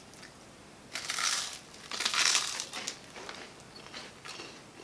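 Crunching of bites into dry toast: two loud crunches about a second apart, the first about a second in, followed by fainter crackles of chewing.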